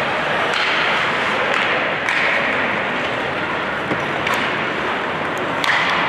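Ice hockey play: skates scraping on the ice make a steady hiss, broken by several sharp clacks of sticks and puck, the loudest near the end.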